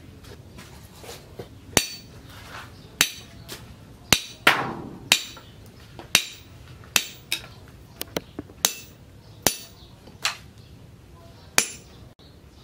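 Machete blade, forged from a tractor disc-plough disc, chopping down onto wire laid across a steel post: about a dozen sharp metal-on-metal clacks at irregular intervals, a few in quick succession, some ringing briefly. It is a sharpness test, the edge cutting through the wire.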